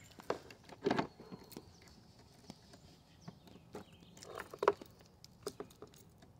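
Footsteps and small handling noises: scattered taps, knocks and rustles, the loudest about a second in and again just before five seconds.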